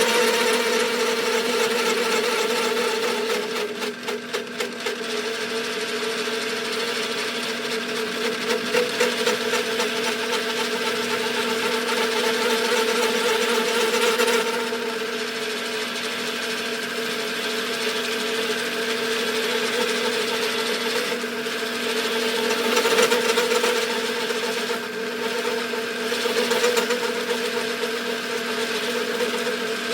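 Metal lathe turning a steel PTO yoke while a round-insert button cutter takes a cut across a hard weld bead: steady machine running with a strong continuous tone and a scraping cutting noise that swells and fades a little. The cut is chattering, which is put down to the weld being hard.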